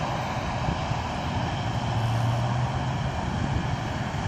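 Steady rumble of road traffic, with a low engine hum that swells about two seconds in.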